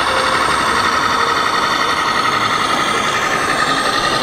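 Electronic diesel engine sound from an RC model Scania truck's sound module, running steadily through its small speaker.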